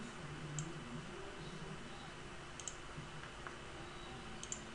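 Computer mouse clicks over a steady low hum and hiss. There is one click a little after the start, then two quick double clicks, one near the middle and one near the end.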